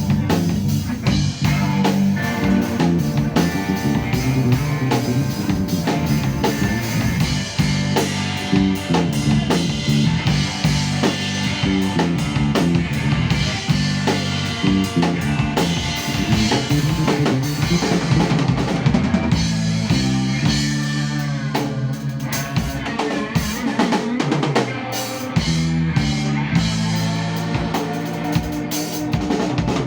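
Live band music with the drum kit to the fore, snare, bass drum and rimshots over a moving bass guitar line.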